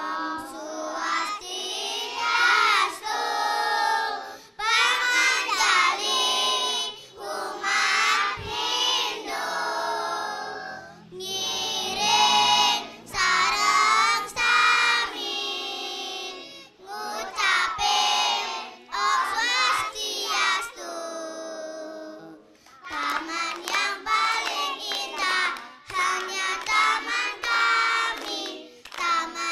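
A group of young kindergarten children singing together in unison, in short phrases with brief pauses between them, with no instruments heard.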